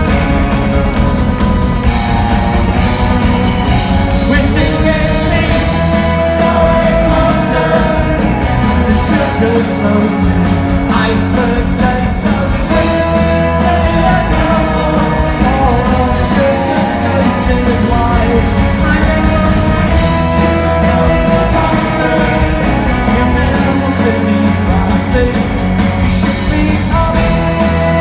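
Live pop-rock band playing loudly, with a lead vocal singing over guitars, bass and drums.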